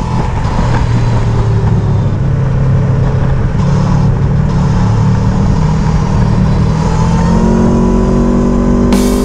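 Aprilia Tuono V4 Factory's V4 engine running under way at a steady note, then rising in pitch as it accelerates over the last couple of seconds.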